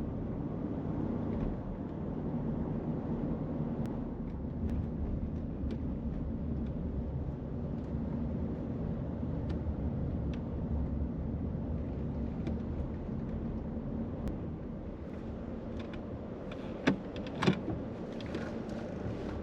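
Car driving, heard from inside: a steady low engine and road rumble. Two sharp knocks come about half a second apart near the end.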